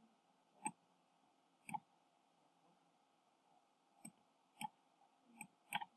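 Computer mouse clicking, about six single sharp clicks at uneven intervals over near-silent room tone.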